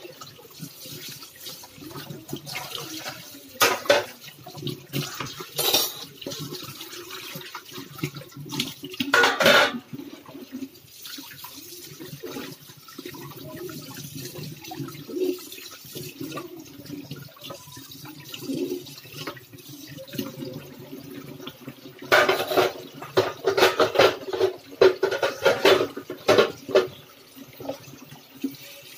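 Dishes being washed by hand at a stainless steel sink: tap water running and splashing while steel plates and bowls are scrubbed and rinsed, clinking and clattering against each other and the sink. The clatter comes in several loud spells, the longest a few seconds from the end.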